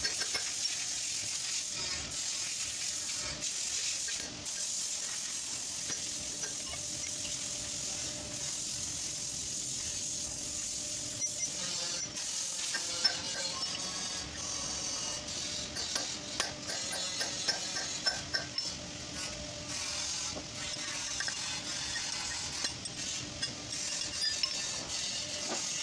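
Steady hiss with a faint hum, under scattered metallic clinks and knocks that come thicker in the second half, as a steel bearing-puller plate and a brake rotor with its hub are handled.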